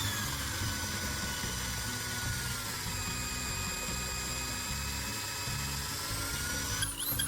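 Electric drill running steadily as it bores a central hole into a wooden handle, its motor whine sagging slightly in pitch under load. The sound changes abruptly just before the end.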